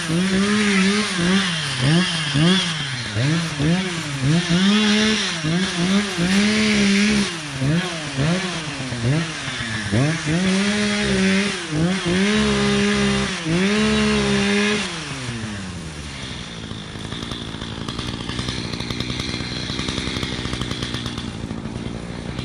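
Echo CS-590 Timberwolf two-stroke chainsaw at high revs cutting wood, its engine pitch dipping and recovering again and again as the chain loads up in the cut. About 15 seconds in it winds down and settles to a quieter idle.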